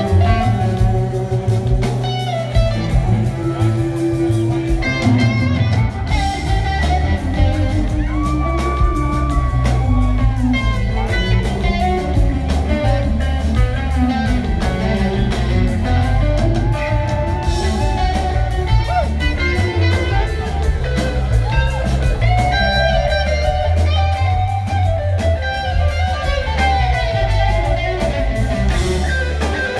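Live blues-rock band playing, with electric guitar leading over bass and drums.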